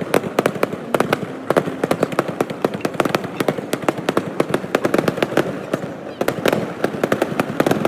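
Fireworks going off as a dense crackle of sharp pops, several each second.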